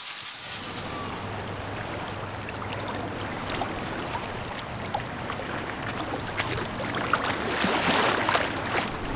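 Choppy shallow seawater sloshing and lapping around a person wading, with small splashes, louder for a moment about eight seconds in.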